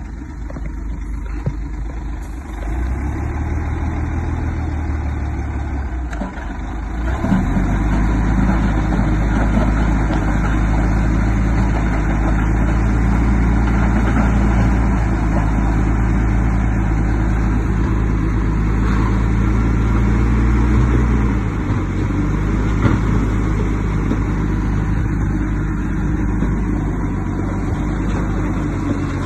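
Heavy diesel engine of earthmoving machinery running steadily, getting louder about seven seconds in and easing off about two-thirds of the way through.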